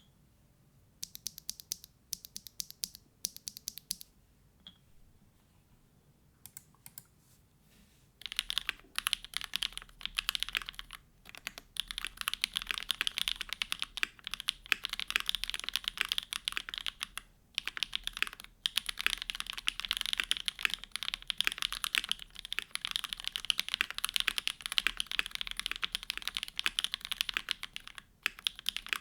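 Typing on a Neo65 mechanical keyboard with a polycarbonate plate, O-ring mount, plate and case foam, hand-lubed SWK Jieum V2 switches and GMK keycaps. A few short quick runs of keystrokes come in the first seconds. From about eight seconds in there is continuous fast typing with only brief pauses.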